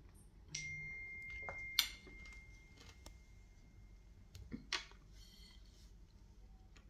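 A single clear, high ringing tone sets in about half a second in, holds for about a second, and fades out over the next two, with a sharp click on it partway through. A few light clinks of a fork against a breakfast plate follow near the end.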